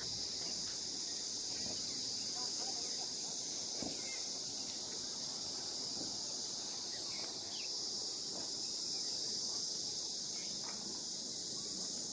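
Crickets chirping in one steady, unbroken high-pitched chorus.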